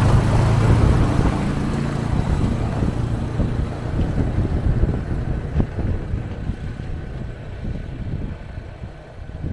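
ATV engine running as the machine is driven, with a steady engine hum loudest in the first couple of seconds that then gradually eases off into rumbling noise.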